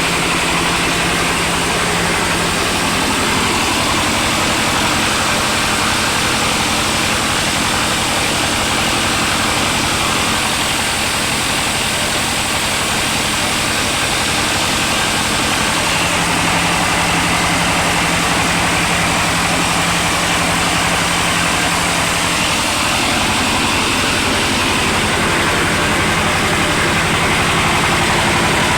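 Floating fish-feed pellet extruder machine running steadily, a loud continuous mechanical drone with a low hum under it.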